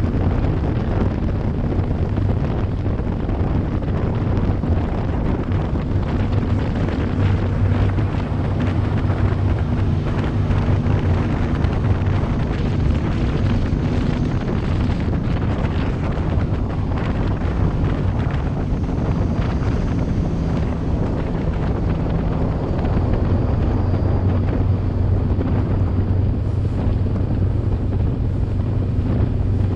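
Small-block V8 of a 22-foot Cheetah Wildcat catamaran deck boat running at speed: a steady engine drone under heavy wind buffeting on the microphone and the rush of the hull over the water. The engine note shifts a couple of times as the boat slows from about 40 to 30 mph.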